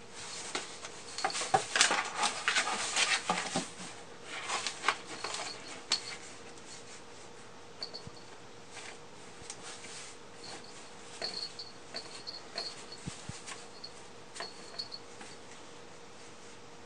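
Cat moving and grooming inside a cardboard box: scuffs, rustles and licking clicks against the cardboard, busiest in the first six seconds, then scattered and quieter.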